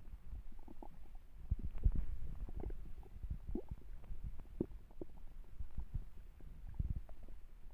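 A hungry, empty stomach growling: an irregular run of short, low rumbles and pops, loudest about two seconds in.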